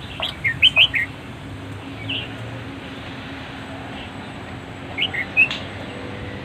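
A bird calling: a quick run of short high chirps within the first second, a single chirp around two seconds in, and another short run of chirps about five seconds in, over a steady background hiss.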